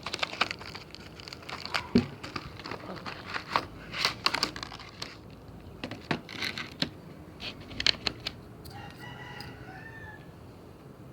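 Slime being squished and handled, a run of irregular sticky clicks and pops. Near the end a rooster crows once in the background.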